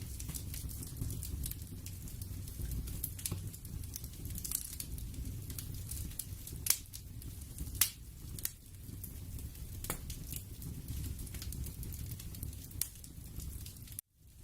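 Ambient background soundscape: a low, steady rumble with irregular sharp pops and crackles scattered through it. It cuts out briefly near the end.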